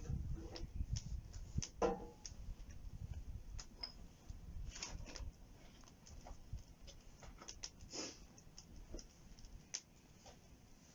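Wood campfire crackling, with irregular pops and snaps, a few sharper ones around two and eight seconds in. A low rumble underneath dies away about halfway through.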